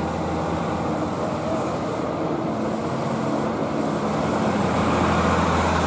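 Trucks' diesel engines running under load as they climb slowly, a steady low drone that grows louder over the last couple of seconds as they draw near.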